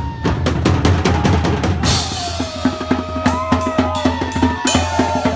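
Loud music with a fast, driving drum-kit beat of bass drum, snare and rimshots, with a gliding melody line over it in the second half.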